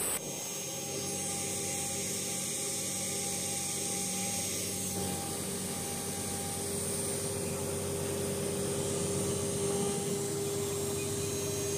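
Small CNC engraving router's spindle running with a fine bit cutting into a copper-alloy disc: a steady machine whine with the noise of the cut.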